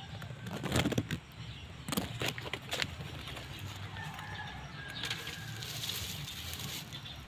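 Fern fronds rustling and crackling against a handheld phone as it pushes through the foliage, with a few sharp crackles in the first three seconds, then a softer rustle.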